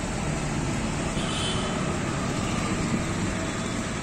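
Steady city street traffic noise: an even rumble of vehicles going by.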